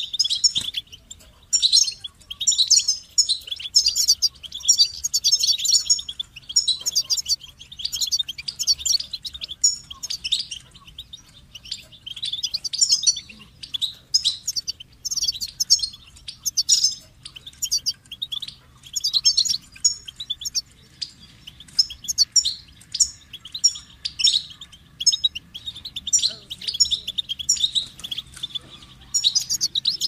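European goldfinch singing: quick phrases of high, rapid twittering notes with short breaks between them.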